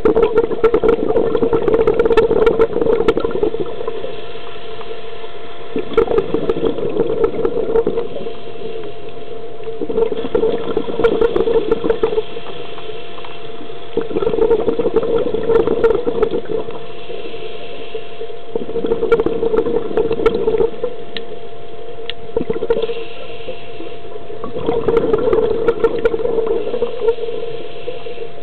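Scuba diver's regulator heard underwater: exhaled bubbles gurgling and crackling out in bursts of two to three seconds, about six breaths in a slow steady rhythm, with quieter pauses between. A thin steady tone runs underneath.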